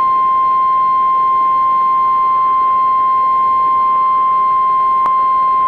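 NOAA Weather Radio 1050 Hz warning alarm tone: one loud, steady, unbroken beep that signals a warning message is about to be read. A brief click sounds near the end.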